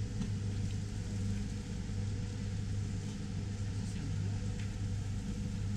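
Steady low rumble of an idling engine, with a few faint clicks.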